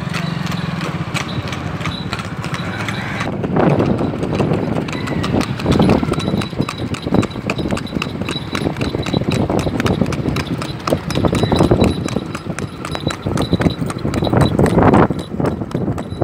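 Horse's hooves clip-clopping on a paved road in a quick, high-stepping gait, a dense run of sharp hoofbeats. A low steady hum sits under them for about the first three seconds.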